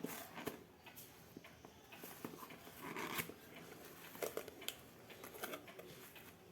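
Scattered small clicks and rustles as a manual sphygmomanometer kit and its packaging are handled and unpacked.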